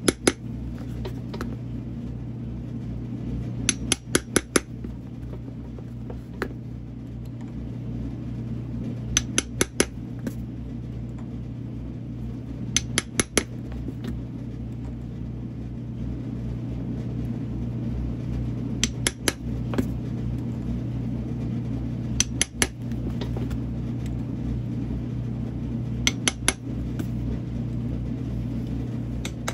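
A peg awl driven into a leather boot sole to make holes for wood pegs: a quick group of three or four sharp taps for each hole, repeated every few seconds, about eight times. A steady low hum runs underneath.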